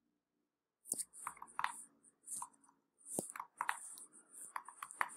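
Computer keyboard typing: irregular keystroke clicks starting about a second in, as a word is typed into a spreadsheet cell.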